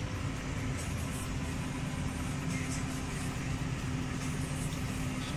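Case IH Puma tractor running steadily while driving across a field, heard from inside the cab: an even engine drone with a constant low hum.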